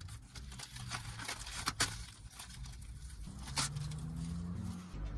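Sheets of nori seaweed being crisped and handled, giving dry crackles and crinkles with a few sharp clicks.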